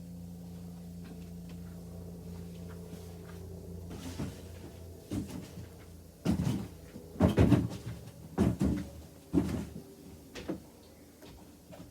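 A steady low hum, then from about four seconds in a run of about eight irregular knocks and thumps, some in quick pairs.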